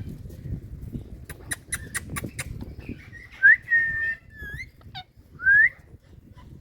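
Indian ringneck parrot giving short whistled calls, the loudest rising and then holding its pitch about halfway through, another rising whistle near the end. A quick run of sharp clicks comes before the whistles.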